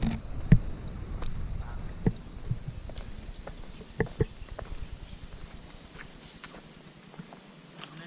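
Footsteps on dry leaf litter along a forest path, irregular steps that are loudest in the first half, over a steady high-pitched insect drone.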